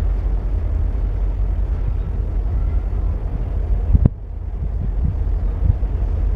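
Low, steady rumble of a diesel freight train with EMD G22UB locomotives, broken by a sudden click and drop in the sound about four seconds in.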